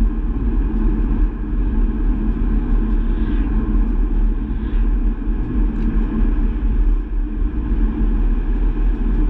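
Astra GTC on the move: steady low rumble of engine and tyre noise with no breaks or gear changes.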